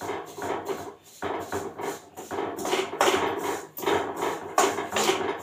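Steel spoon scraping and knocking against a steel kadhai in quick repeated strokes as sesame seeds are stirred while they roast. There is a brief pause about a second in.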